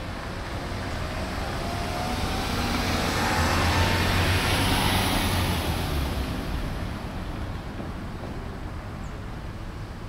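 A motor vehicle passing by: a rush of engine noise that swells, peaks about four to five seconds in, and fades away.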